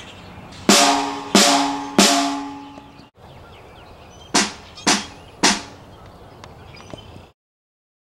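Three hard strikes on something resonant, each ringing with a clear pitch that dies away over about a second. After a short break come three quicker, quieter strikes that barely ring.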